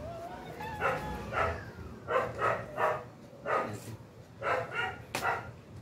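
A dog barking repeatedly, about ten short barks, some coming in quick pairs and threes.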